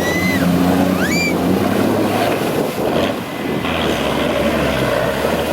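Off-road 4x4 vehicle engine running steadily, with wind on the microphone. Two short rising shrill sounds come near the start, about a second apart.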